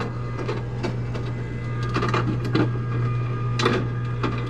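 Refrigerator ice dispenser running: a steady motor hum with irregular clicks and knocks of ice cubes being pushed along inside the freshly repaired ice bin.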